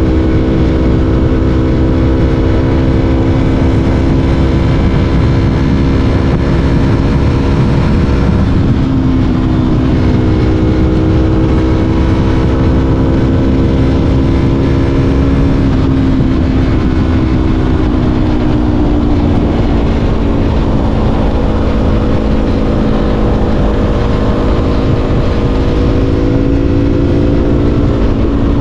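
Yamaha R3's parallel-twin engine running under way with a steady engine note. Engine speed eases down about eight seconds in, drifts lower again later, climbs, then drops near the end. A constant low rush of wind and road noise runs underneath.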